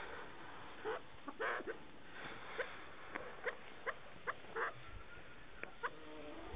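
Chukar partridges calling: a run of short, sharp call notes, evenly spaced about two or three a second through the middle, mixed with a few longer calls.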